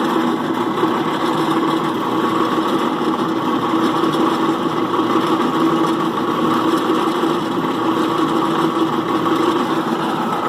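Die grinder running with a steady whine, its bit slowly grinding through a broken screw extractor stuck inside a snapped stud in an exhaust manifold.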